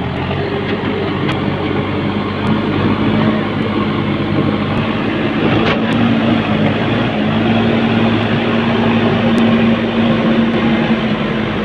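Diesel engines of a backhoe loader and a tracked excavator running steadily under work. The engine note steps up slightly about seven seconds in.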